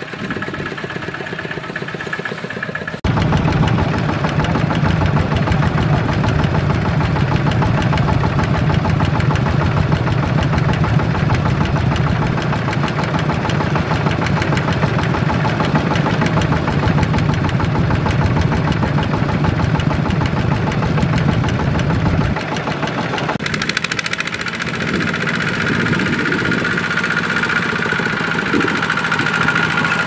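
Single-cylinder diesel engines of two-wheel walking tractors running with a diesel clatter, working through wet paddy mud. The sound changes abruptly about three seconds in to a louder, deeper engine, and again past the two-thirds mark to a thinner sound with a steady higher tone.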